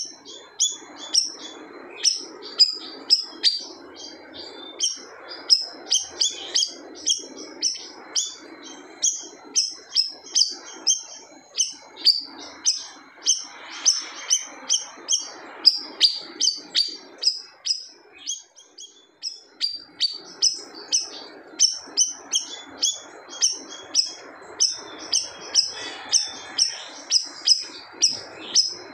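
Siri-siri songbird singing persistently in a long run of short, sharp, high chirps, about two a second, with a brief lull partway through.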